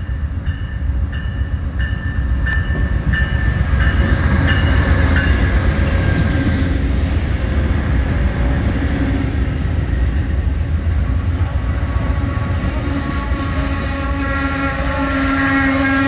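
Amtrak diesel passenger train pulling into a station close by. A bell rings about twice a second, fading under the rising low rumble of the locomotive passing. Bilevel Superliner cars then roll past, and a steady droning tone comes in near the end.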